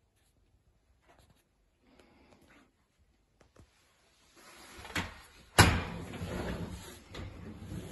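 A door being opened: a click, then a sharp knock about half a second later, followed by a steady low noise.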